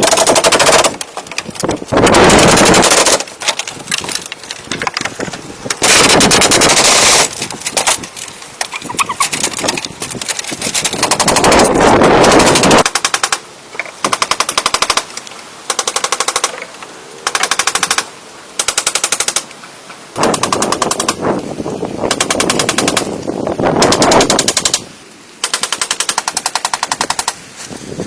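A woodworking power tool cutting in repeated bursts, each a very fast, even rattle. Most bursts last about a second; one near the middle runs about three seconds.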